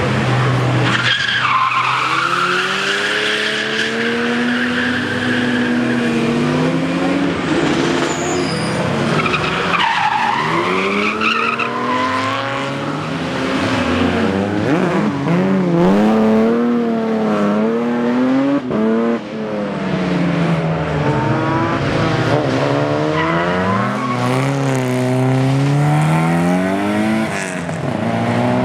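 Rally car engine revving hard, its pitch rising and falling repeatedly through gear changes and throttle lifts, with a high tyre squeal in the first few seconds and again about ten seconds in.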